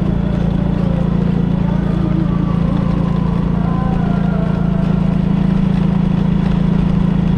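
Motorcycle engine running at a steady cruising speed, a constant drone heard from the rider's seat.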